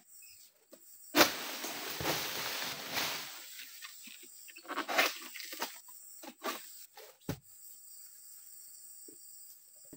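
A sharp snap as a pole-mounted palm sickle (egrek) cuts at an oil palm's crown, followed by about two seconds of rustling and crashing as the cut piece falls through the fronds. A shorter rustle of palm leaves comes around five seconds in, and a single sharp click near the end.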